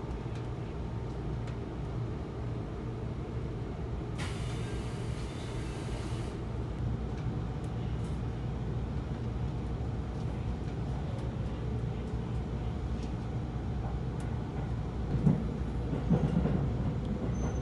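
Inside the cabin of a JR Central 373 series limited express train: a steady low hum and rumble as it stands and then pulls away from the station. A hiss lasting about two seconds comes about four seconds in, and a few low knocks near the end.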